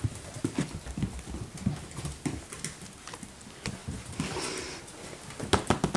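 Puppies' paws and claws tapping and scrabbling on a hard floor as they play, many small irregular taps and knocks, with a brief rustle about four seconds in and a cluster of louder taps near the end.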